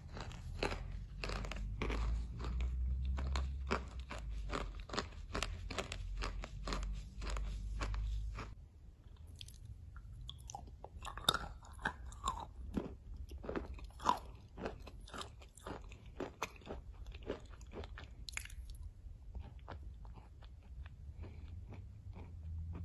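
Close-miked crunching and chewing of a chalk-and-clay mush: dense, rapid crunches for about the first eight seconds, then sparser, softer chewing.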